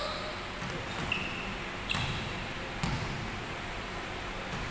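A basketball bouncing on an indoor court a few separate times, about a second apart, with short high squeaks of sneakers on the floor in between.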